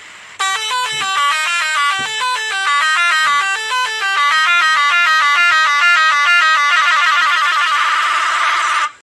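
Basuri telolet horn with six trumpets playing a fast melodic tune of quickly stepping notes, which changes to a rapid warbling trill about two-thirds of the way through and then cuts off suddenly.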